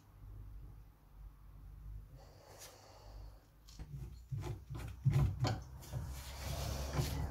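Clicks and knocks of a sanding pad's shank being handled and fitted into a drill press chuck, clustered from about four to six seconds in, over a low steady hum.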